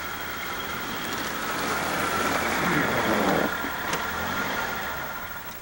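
Small hatchback car's engine running as it drives slowly over snow, growing louder to a peak about three seconds in, then easing off.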